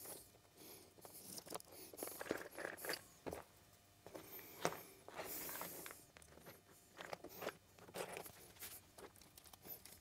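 Soft, irregular rustling of bundled wires and clicks of plastic connectors as a motorcycle wiring harness is handled and looked over by hand, with one sharper click about halfway through.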